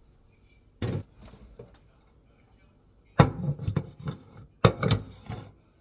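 Kitchen utensils knocking and clattering as food is prepared: a single knock about a second in, then two quick runs of knocks and clatters near the end.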